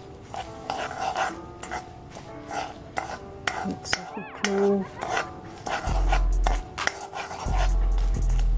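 Metal spoon scraping and stirring melting brown sugar in a cast iron pot as it darkens for burnt sugar, in repeated short scrapes. A brief high gliding squeak comes about four seconds in, and a louder low hum sets in twice in the second half.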